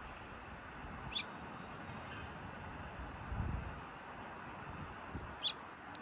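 Small songbirds chirping: two short, sharp high chirps, about a second in and again near the end, with faint higher twittering between, over a steady outdoor hiss and a brief low rumble in the middle.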